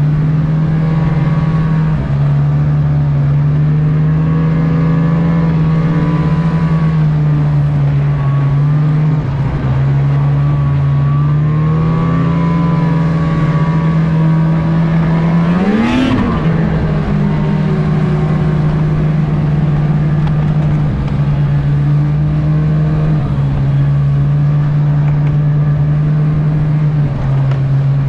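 Snowmobile engine running steadily under the rider, holding a near-constant pitch while cruising along the trail. About halfway through there is a brief sharp rise and fall in pitch.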